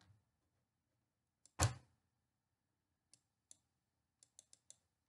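A single dull knock about a second and a half in, then a scattering of faint, sharp clicks at the computer, about six in under two seconds.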